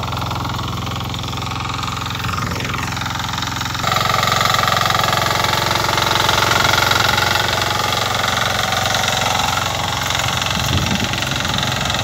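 Engine of a Branco walking tractor running steadily as the machine drives across the field, louder from about four seconds in.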